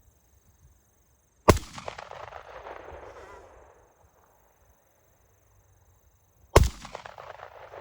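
Two handgun shots about five seconds apart, each sharp report followed by a rolling echo that dies away over about two seconds.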